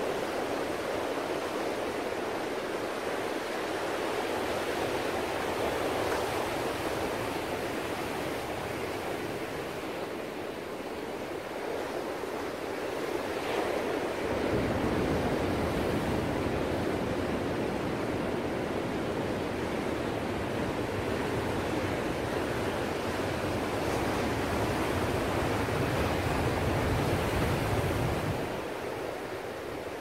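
Ocean surf: large waves breaking and washing in as a steady rush of water. A deeper rumble joins about halfway through and falls away near the end.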